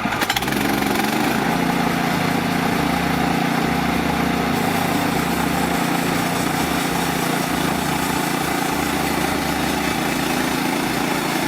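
The small gasoline engine of a Woodland Mills HM130MAX bandsaw sawmill running, picking up about half a second in and then holding a steady speed.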